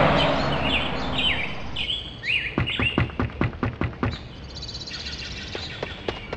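Sound-effect birds chirping with short falling calls and a high trill near the end. Over the first two seconds a passing car fades away, and a couple of seconds in comes a quick run of sharp taps, about six a second.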